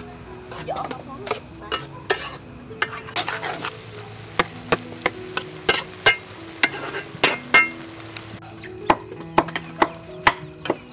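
A metal spatula stirring a wok of frying soybeans and chopped pork, with water just added, tapping and scraping the pan in a run of sharp clicks. For a few seconds in the middle the food sizzles with a steady hiss.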